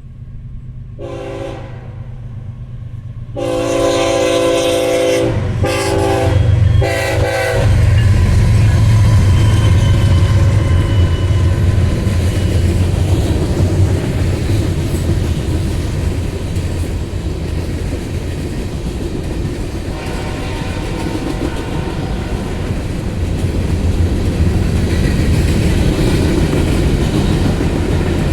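BNSF ES44C4 #3255's multi-chime air horn sounds four times, a short blast, a long one, then two shorter ones close together, over the low drone of the lead diesel locomotives. After that the locomotives pass and the freight cars roll by loudly with steady wheel clatter on the rails.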